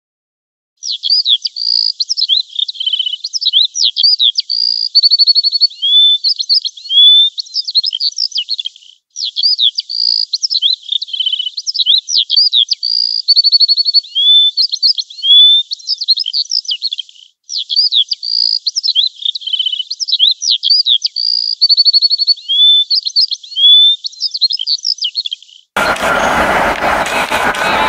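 Songbird song, a varied run of quick chirps, trills and rising whistles, thin with no low sounds, played three times over as an identical loop. About two seconds before the end it cuts abruptly to a dense, noisy background sound.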